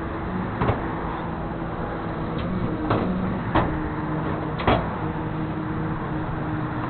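Flatbed tow truck's engine running steadily, with four sharp knocks spread over the first five seconds.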